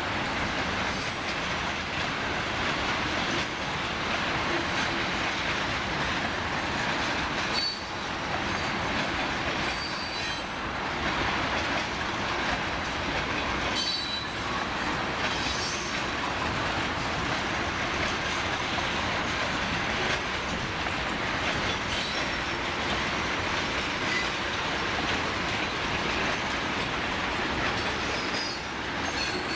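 Freight train cars rolling past on the rails: a steady rumble and rattle of steel wheels on track, with brief high wheel squeals every few seconds.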